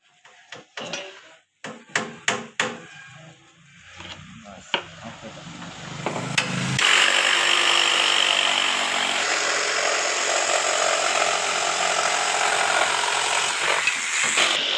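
A handful of sharp clicks and knocks, then a power tool builds up from about four seconds in and runs steadily and loudly for the rest of the time.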